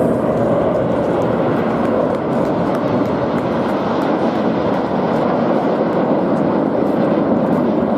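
Steady jet noise from a formation of nine BAE Hawk T1 jet trainers flying by, each powered by a single Rolls-Royce Turbomeca Adour turbofan.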